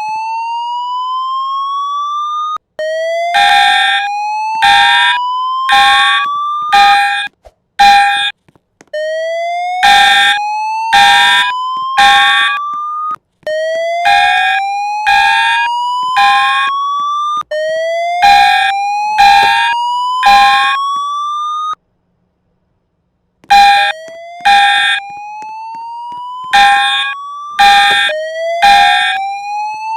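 Fire alarm signals under test: a slow-whoop tone rising over and over, about every four seconds, with short horn blasts about once a second on top. Both cut out for about a second and a half roughly three quarters of the way through, then start again.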